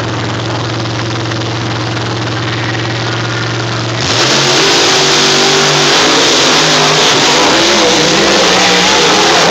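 Two monster trucks' supercharged V8 engines idling with a steady low hum, then about four seconds in they open up and accelerate off the line, much louder, the engine pitch rising and falling as they race.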